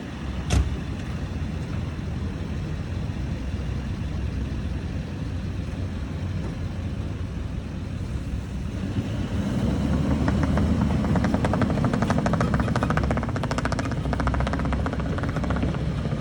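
Vehicle engine running steadily, growing louder about nine seconds in with a rapid, regular pulsing; a sharp click sounds near the start.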